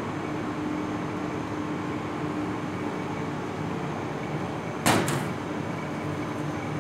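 Steady background hum of commercial kitchen equipment, with a faint low tone running through it. A sharp double knock stands out about five seconds in.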